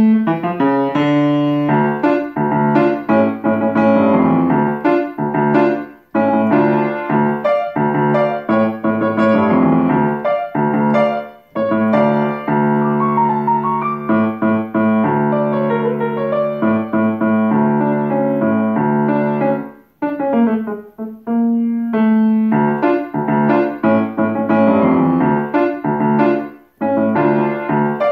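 Solo grand piano playing a lively piece in short phrases, with a low note repeating through most of them. The music breaks off briefly four times, about every five to eight seconds.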